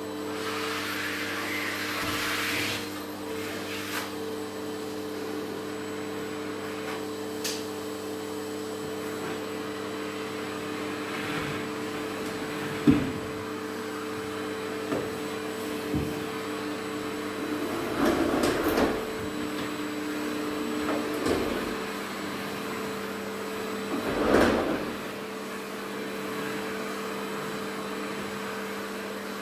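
Canister vacuum cleaner running with a steady hum as its nozzle is worked over the sofa and floor. A sharp knock comes near the middle, and a few short louder noisy stretches follow later on.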